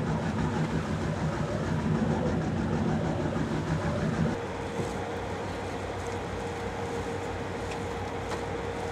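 Boat engine running steadily under wind and sea noise. About four seconds in the low rumble drops away and a steady hum holds for the rest.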